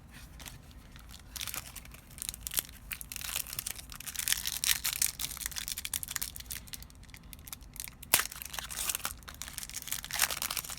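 Foil trading-card booster pack wrapper crinkling and tearing as it is handled and opened, with one sharp click about eight seconds in.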